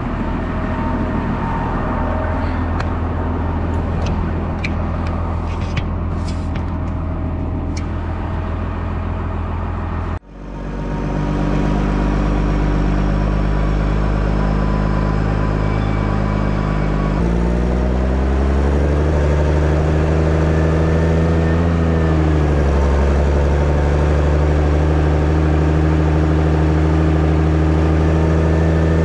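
Tractor engine running steadily under load while pulling a loaded grain trailer. About ten seconds in the sound cuts abruptly to a louder, steadier engine note, whose pitch rises and falls again a little past halfway.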